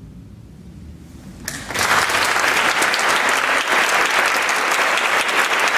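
Audience applauding, starting suddenly about a second and a half in after a brief hush and then continuing steadily.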